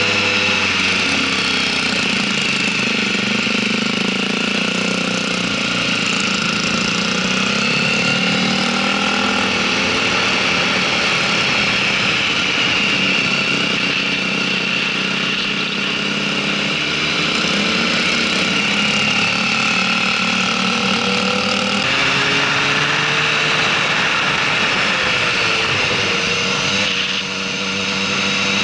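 Motorcycle engine running under way, its pitch rising and falling with the throttle through the bends. The engine note changes abruptly about 22 seconds in, and the level dips briefly near the end before the pitch climbs again.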